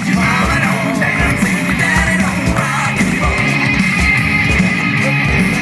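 Loud rock music with a steady drum beat and a singing voice.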